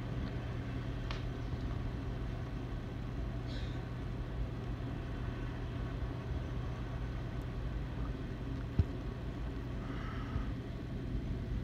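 Steady low rumble of a manifest freight train rolling past out of sight, with a constant low hum under it and a sharp click about nine seconds in.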